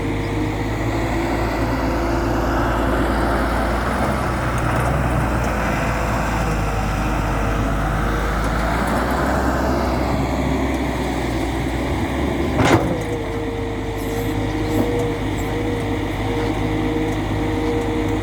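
Tata Hitachi EX200 Super excavator's diesel engine running steadily under work, with a steady whine over it. There is a busier, noisier stretch in the first half, and one sharp metallic clank about two-thirds of the way through.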